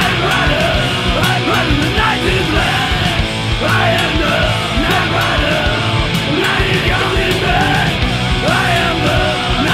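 Heavy metal/punk rock band playing at full tilt: distorted electric guitars, bass and pounding drums in a rough demo mix, loud and dense.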